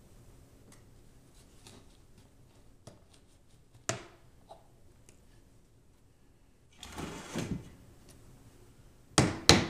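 Wooden shims and a wedge being handled and worked into place under a hardwood bullnose to level it: faint light clicks, a single sharp knock about four seconds in, a brief scraping, then several loud sharp knocks close together near the end.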